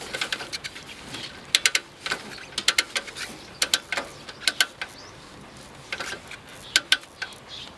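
Bajaj Platina Comfortec kick-start being kicked over and over, its mechanism giving a short cluster of sharp metallic ratchet clicks with each kick while the engine does not catch. The kick-start slips, turning freely without grip, which the mechanic traced to worn clutch plates.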